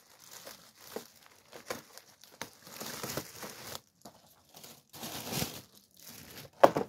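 Plastic wrapping crinkling and tearing as it is pulled off a boxed toy, in irregular rustles, with one sharp crackle near the end.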